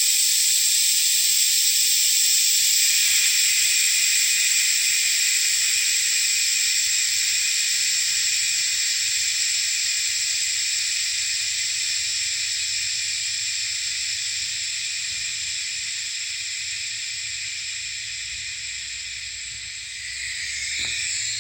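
Compressed air hissing out of a Firestone Ride-Rite air bag suspension system as its 70 psi test pressure is let down. The hiss starts abruptly, slowly weakens as the pressure drops, and cuts off suddenly near the end.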